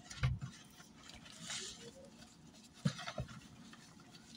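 Faint handling noises: a soft knock about a quarter second in, a brief rustle about halfway, and two more soft knocks near three seconds in.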